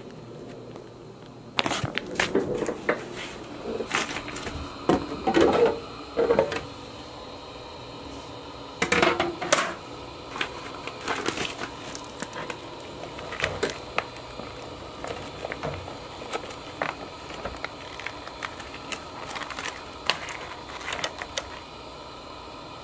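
Handling noise of a vacuum-sealed plastic steak bag: crinkling, crackling and sharp clicks as it is handled, busiest in the first ten seconds and sparser after.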